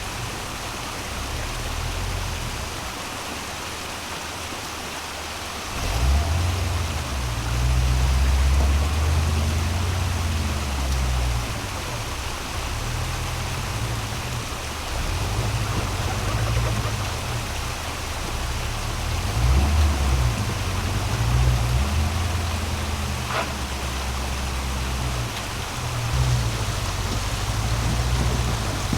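Steady rushing water noise, with a low rumble that comes and goes from about six seconds in.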